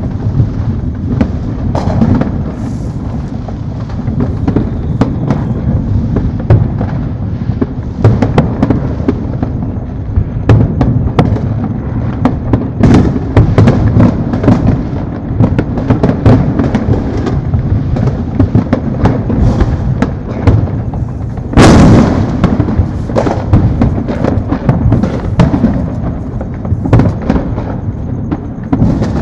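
Many fireworks going off at once: a continuous dense barrage of overlapping booms, pops and crackles over a low rumble, with one especially loud blast about three quarters of the way through.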